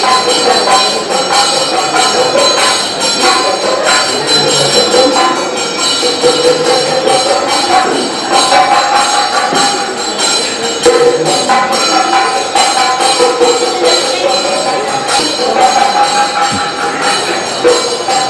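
Kathakali accompaniment music: a voice holding long, wavering notes over fast, steady strokes of ringing hand cymbals and drums.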